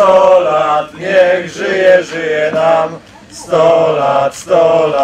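A group of mostly male voices singing a birthday song together in short, held phrases, with a brief break about three seconds in.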